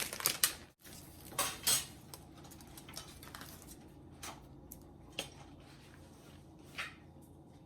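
A few scattered light clicks and taps as an iPhone box and its packaging are handled and opened.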